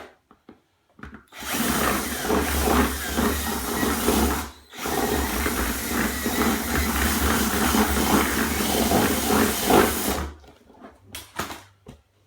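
Power drill running in two spells, about three and five seconds long with a brief stop between, enlarging a hole drilled in a plastic tub.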